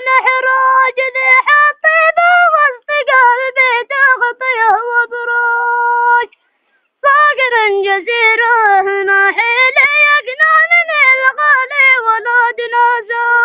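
A boy singing a Razihi mawwal solo in a high voice, with ornamented phrases that bend up and down and settle on long held notes. There is a short breath pause about six seconds in, and he holds a long note again near the end.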